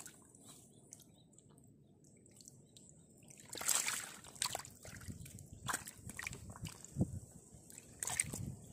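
Fish splashing in a shallow pit of muddy water: quiet at first, then a loud splash about three and a half seconds in, followed by several shorter separate splashes.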